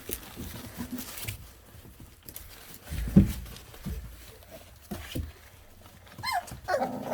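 Bully-breed puppies at play: scattered soft thumps and scuffling, the loudest thump about three seconds in, and a short high whine from a puppy near the end.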